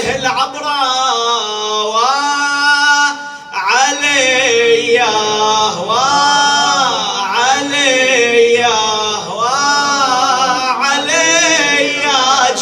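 A man chanting an Arabic mourning lament, drawing out each phrase in long, wavering melismatic notes with short breaks for breath.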